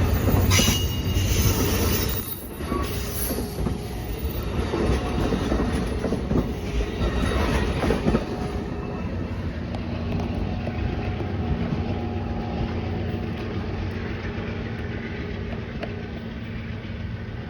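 California Zephyr passenger train rolling past, its cars' wheels clicking and squealing on the rails, the sound fading steadily as it moves away.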